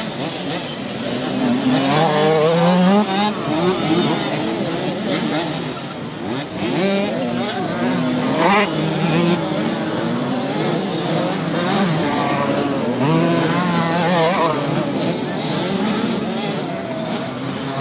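Several 65 cc two-stroke minicross motorcycles racing. Their engines rev up and fall away again and again as the riders work the throttle and shift, the pitch rising and dropping.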